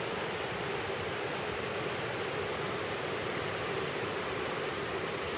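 Waterfall: a steady, even rush of falling water with no pauses or changes.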